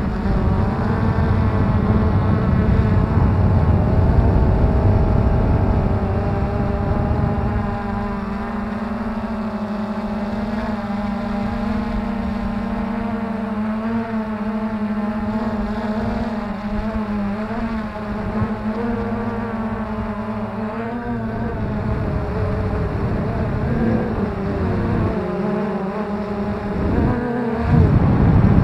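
Multirotor drone's electric motors and propellers whining in flight, heard through a camera mounted on the drone, over a low rumble. The whine's pitch wavers as the motors change speed, swinging more widely and briefly getting louder near the end.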